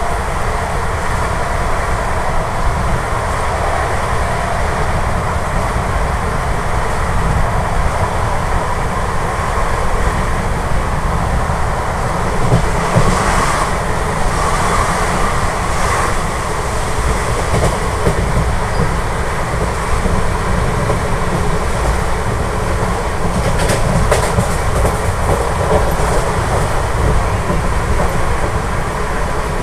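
Indian Railways express passenger train running at speed, heard from the side of a coach: a loud, steady rumble of wheels on rail and rushing air, with a few sharper clacks about halfway through and again near the end.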